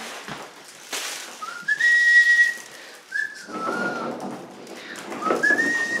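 A person whistling a few held notes, each sliding up into its pitch, with rustling handling noise between the notes.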